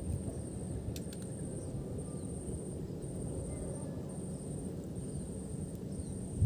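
Outdoor ambience: a steady low rumble of wind on the microphone, with a thin, high insect trill that breaks off and resumes every second or so. There are a couple of faint clicks about a second in.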